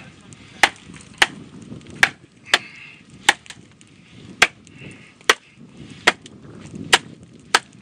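A wooden baton striking the spine of a machete lodged in a log, splitting the log lengthwise: about nine sharp knocks at a steady pace of roughly one a second.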